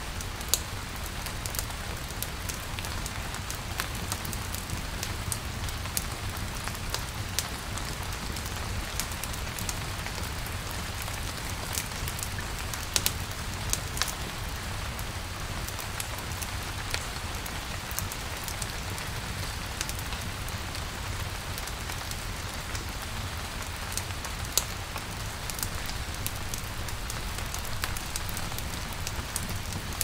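Steady rain falling, with scattered sharp ticks and pops throughout.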